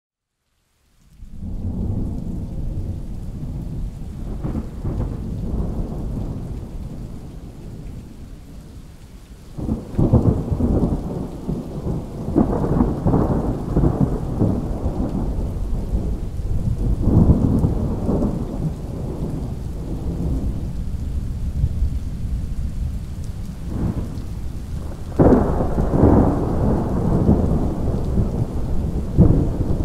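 Thunderstorm: low rolling thunder over steady rain, starting about a second in. Louder peals of thunder roll in about ten, twelve, seventeen and twenty-five seconds in.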